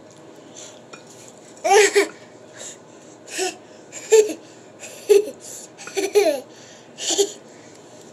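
Toddler laughing in about seven short, high-pitched bursts, the loudest about two seconds in.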